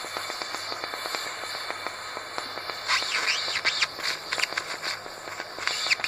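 Gas brazing torch hissing steadily, with fine crackling, as it brazes a copper capillary tube into a refrigerator's filter drier. From about three seconds in, birds chirp in quick high notes over it.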